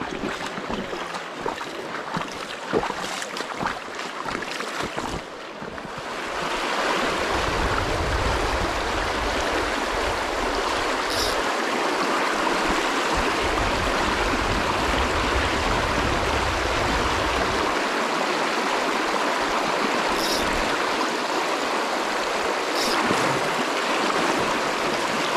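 Creek water rushing steadily over the streambed; quieter with a few small knocks at first, then fuller and louder from about six seconds in.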